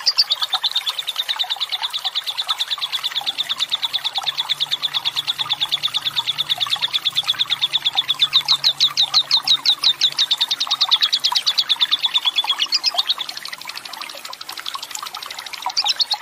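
Lovebird singing its long 'ngekek panjang' chatter: an unbroken trill of fast repeated high notes, about ten a second. It drops softer for a couple of seconds near the end, then comes back loud.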